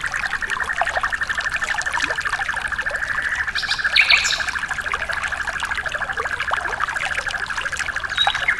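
A bird's very rapid trill held on one pitch without a break, over trickling water, with a few higher chirps about three and a half to four seconds in.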